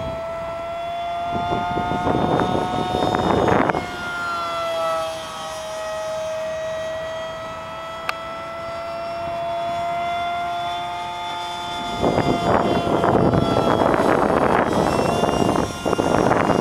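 Aircraft flying overhead, its engine giving a steady whine with overtones that drops slightly in pitch about four to five seconds in. Wind buffets the microphone in gusts near the start and again in the last few seconds.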